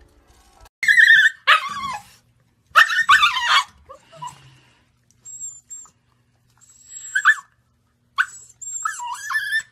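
Husky puppy calling out in a run of high-pitched yelps and howl-like cries, some falling in pitch. The loudest come in the first few seconds, followed by shorter, fainter calls.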